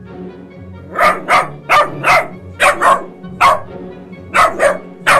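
A puppy barking: about ten short barks, mostly in quick pairs, starting about a second in, over background music.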